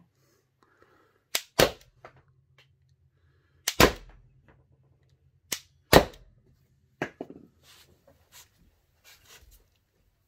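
NXG PS 100 (Umarex HDR 50) .50-calibre CO2 pistol firing three rubber-coated steel balls, about two seconds apart. Each shot is a sharp pop followed a fraction of a second later by a louder knock as the ball strikes the curtain behind the chronograph, and a few fainter knocks follow near the end.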